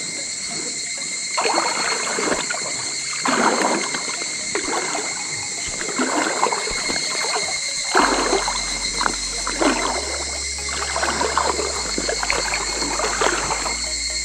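Water sloshing in repeated strokes, about one a second, from a float tube moving through the water, over a steady high insect drone. A low bass line of background music comes in about halfway through.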